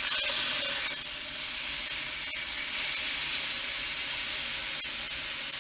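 Thick venison steaks searing in canola oil heated almost to smoking in a cast iron skillet: a steady sizzle, with a few faint ticks.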